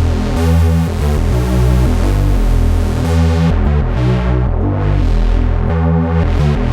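Behringer DeepMind 12D analog polyphonic synthesizer playing a patch: sustained chords over a deep bass line, changing every second or so. The treble dulls about halfway through.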